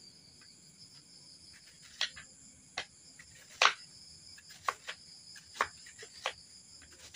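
A knife slicing through banana stem onto a cutting board: about six sharp chops at uneven intervals, the loudest about three and a half seconds in. Crickets chirp steadily and faintly underneath.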